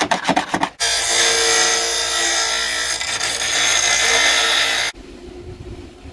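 A few rapid scraping strokes of a homemade slag chipper, a sharpened piece of leaf spring, against a steel plate. Then a bench grinder grinding steel for about four seconds, which cuts off suddenly, leaving a low background noise.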